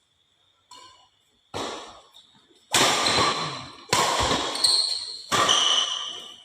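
Badminton rally: rackets striking a shuttlecock about once a second, each hit sharp and ringing out in a large hall, louder from about three seconds in, with shoes squeaking on the court.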